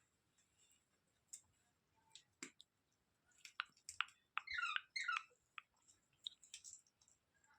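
A pet parrot making a quick run of short, squeaky chirps in the middle, with scattered soft clicks around them.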